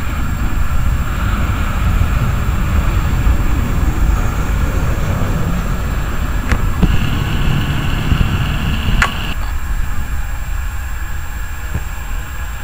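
Boeing 737-800's CFM56 turbofan engines on a landing approach: a loud, steady jet noise with a deep rumble and a whine, easing slightly near the end. A thin, higher steady tone joins for about two seconds midway, framed by two sharp clicks.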